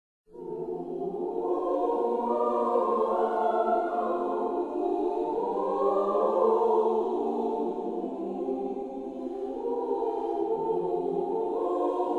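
Women's choir singing slow, long-held chords in several parts, fading in over the first second.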